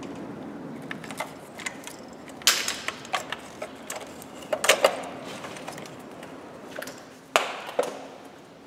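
Hands working on parts in a car's engine bay: irregular clicks and knocks of plastic and metal pieces being handled and set down, a few of them sharper and louder.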